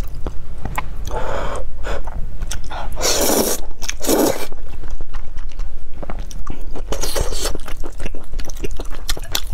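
Close-miked eating of saucy spicy noodles: several loud slurps, the strongest about three seconds in, with wet chewing and small clicks between them.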